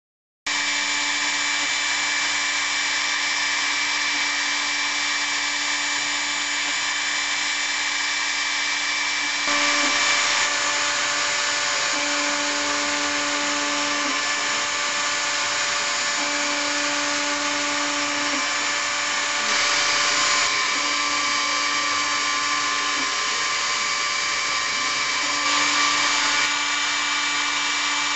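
CNC router spindle at 18,000 rpm with a 30-degree V-bit cutting into wood: a steady high-pitched whine that starts abruptly just after the beginning. A lower hum cuts in and out every couple of seconds, and there are brief louder spells about 10, 20 and 26 seconds in.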